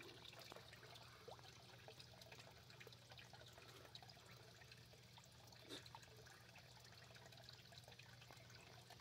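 Near silence: faint pond water sounds over a low steady hum, with a soft click just before the six-second mark.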